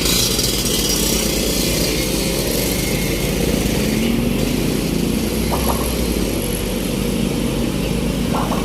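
Heavy vehicle's engine running with a steady low rumble, amid road traffic noise.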